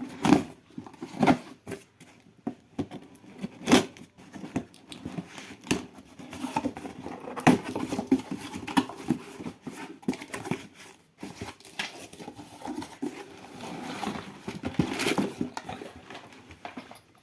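Packaging being handled and opened: cardboard and plastic rustling, crinkling and tearing, with irregular knocks and taps.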